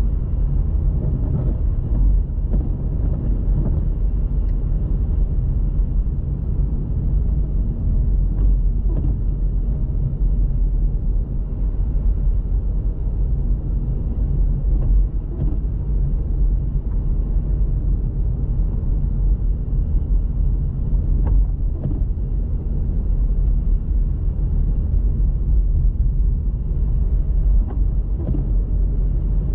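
Steady low rumble of a car driving along a snowy road, road and engine noise together, with a faint tick about every six seconds.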